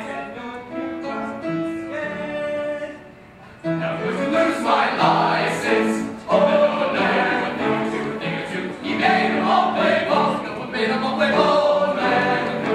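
Men's choir singing a gospel number with piano accompaniment. The sound drops low briefly about three seconds in, then the voices come back in full.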